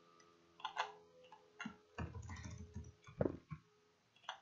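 Faint computer keyboard keystrokes and mouse clicks, scattered single clicks as lines of code are deleted, with a few duller, heavier taps around the middle.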